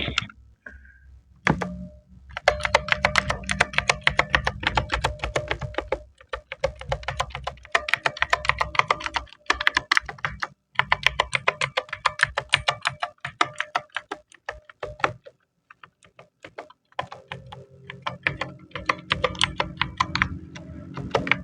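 Gamen Titan 2 mechanical keyboard with clicky blue switches being typed on key after key in quick runs. The runs break off briefly a few times. This is a test that every key registers.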